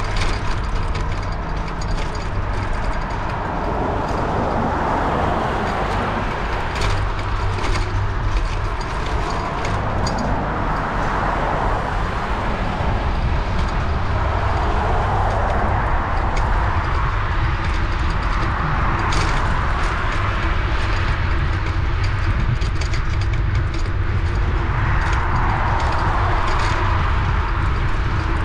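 Wind buffeting the microphone of a moving bicycle, with the rush of passing traffic swelling and fading several times and scattered light clicks.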